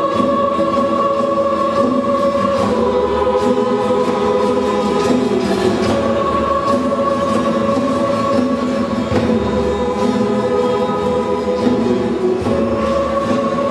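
Large mixed choir singing long held chords that change every few seconds, in the reverberant space of a big church.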